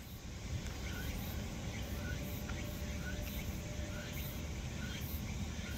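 Insects chirping in short high-pitched pulses that repeat irregularly about twice a second, over a steady low rumble.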